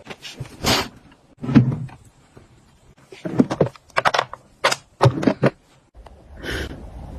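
Household items being handled and set down, a run of short knocks and clatters in several clusters. About six seconds in, a low steady hum starts.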